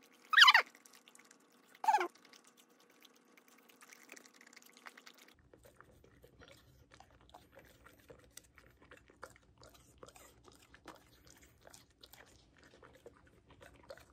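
Bernese Mountain Dog chewing pieces of apple: a long run of small, crisp crunches and mouth clicks. Near the start come two short, loud, voice-like sounds about a second and a half apart.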